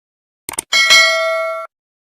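Sound effect for a subscribe animation: two quick mouse clicks, then a notification bell ding that rings for about a second and cuts off abruptly.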